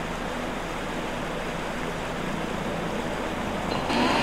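Steady rushing of shallow river water over stones, with a rising whine coming in near the end.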